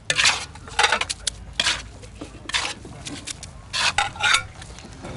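Metal skimmer scraping and scooping rice against the wall of a big cast-iron kazan of plov, in short irregular strokes about two a second.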